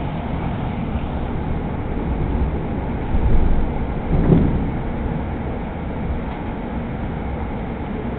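Interior running noise of a Hudson-Bergen Light Rail car in motion: a steady low rumble of wheels on rail, with two short louder bumps about three and four seconds in.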